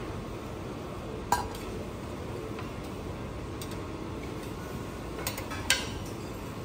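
Metal spoon and plates clinking against a stainless-steel counter as a dish is plated: one sharp ringing clink about a second in and a few more near the end, over a steady kitchen hum.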